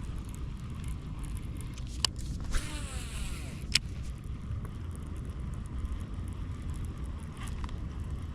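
A cast with a fishing rod and reel: a sharp click, about a second of whirring hiss as line pays out, then another click, over a steady low rumble.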